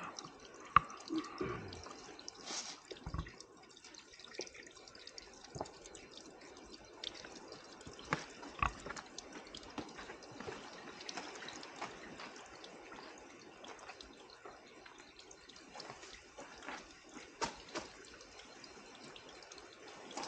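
Water trickling and dripping, with many scattered sharp clicks and taps.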